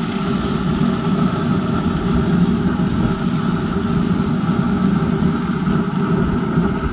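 Pellet grill's combustion fan running with a steady, even hum while the lid is open.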